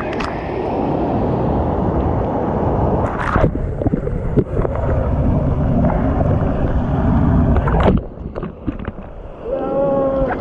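Falling water of a waterfall, heard close up as a loud, steady rush. There are a few sharp knocks or splashes, and the noise drops away suddenly about eight seconds in before coming back near the end.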